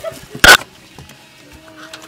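A single sharp knock about half a second in: handling noise from the phone being bumped while it is carried.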